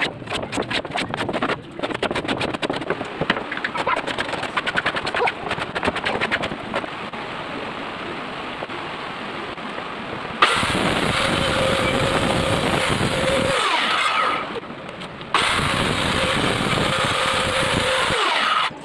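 Rapid, irregular strokes of hand work rubbing or scraping across a wooden board. About ten seconds in, a Stanley circular saw runs twice, about three seconds each time, cutting wood with a steady whine, and winds down between the two cuts.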